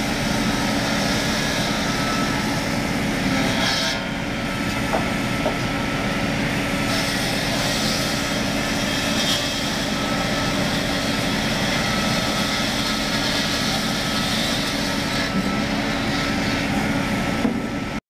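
ZMAX woodworking saw machine running and cutting timber, a steady, dense machine noise that cuts off suddenly near the end.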